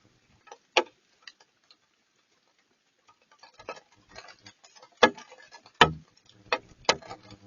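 Rain falling as separate drops, each landing as a sharp tap or tick at an uneven pace, with a short lull about two seconds in.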